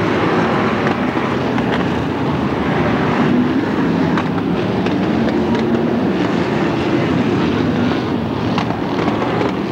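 Several BriSCA stock car engines running hard together as the cars race around the oval track, a steady loud mechanical din with no break.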